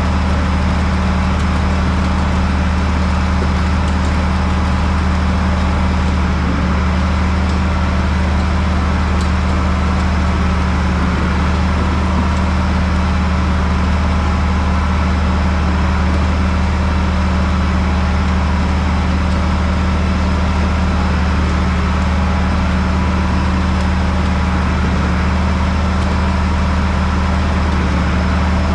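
Heavy farm-vehicle engine running steadily at a constant speed, a low even drone with no change.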